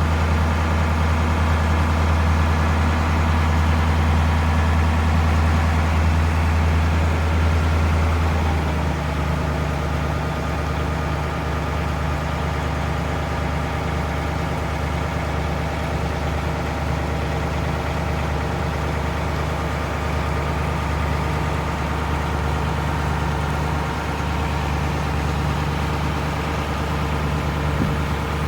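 An engine running steadily. About eight or nine seconds in it settles to a lower, slightly quieter running speed and carries on.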